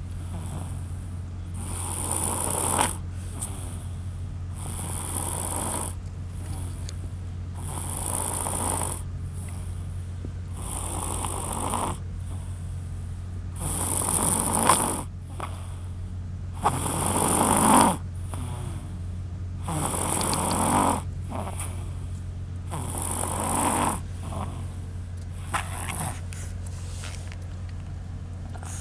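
Snoring in slow, regular breaths: a snore about every three seconds, about nine in all.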